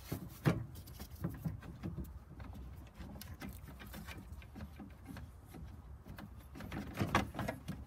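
Irregular clicks, knocks and rubbing from hands working a rubber hose and plastic radiator parts into place. There is a sharper knock about half a second in and a denser run of knocks near the end.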